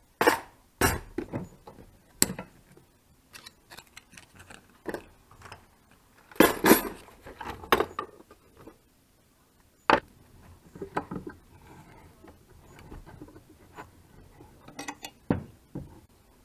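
Metal hex keys clinking and rattling in their plastic case, with the case clicking and tools knocking on the workbench as hands handle them. Scattered sharp clicks and knocks, with a longer rattle about six and a half seconds in.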